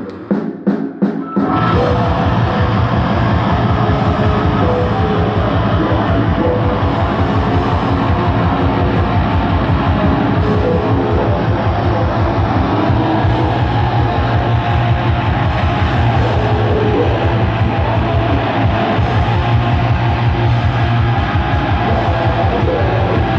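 Black metal band playing live and loud: a few drum hits, then about a second and a half in the full band comes in with distorted guitars over very fast, continuous kick drumming.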